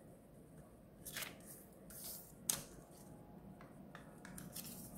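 Square sheet of origami paper rustling and crackling as fingers fold and crease it, in several short swishes with one sharper crackle about halfway through.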